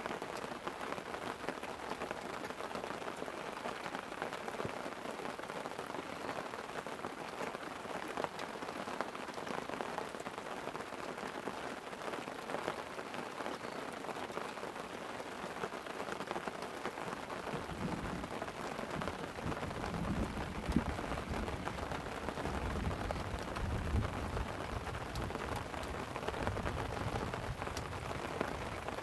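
Light rain falling on a tent, a steady hiss of many small drop ticks. A low rumble of rolling thunder comes in after about eighteen seconds and swells for several seconds.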